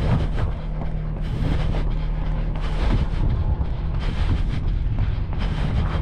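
Wind buffeting the microphone of a camera carried on a run, a steady low rumble broken by irregular thumps and jolts about once a second.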